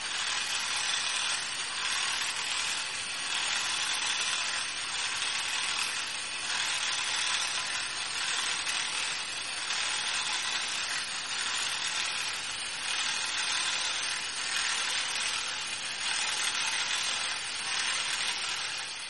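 Small electric motor driving the 3D-printed plastic gears and legs of a walking robot: a steady mechanical whir that rises and falls in a slow, regular rhythm.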